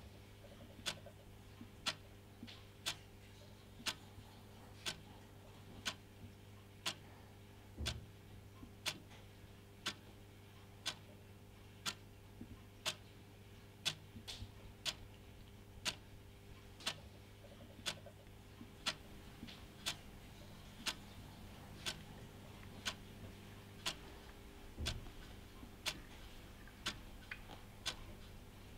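Clock ticking steadily, about once a second, over a low steady hum, with two soft low thumps, one about a third of the way in and one near the end.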